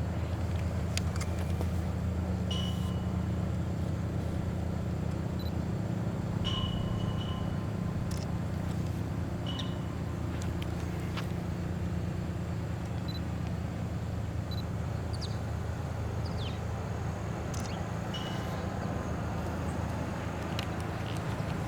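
Low, steady rumble of a vehicle engine running, easing off after about six seconds. A few short high chirps and scattered clicks sound over it.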